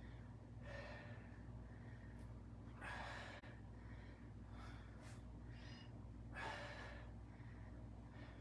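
A woman breathing hard through bicycle crunches: a handful of short, forceful exhales, the strongest about three seconds in and again near seven seconds, over a low steady hum.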